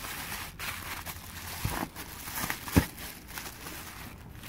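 Handling noise as a phone is picked up and turned over: rustling with a few light knocks, the sharpest about three seconds in.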